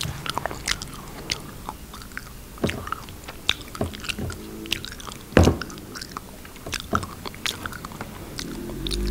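Close-up mouth sounds of chewing a soft homemade edible glue, with the microphone held at the lips: wet clicks and smacks at irregular intervals, the loudest one about five and a half seconds in.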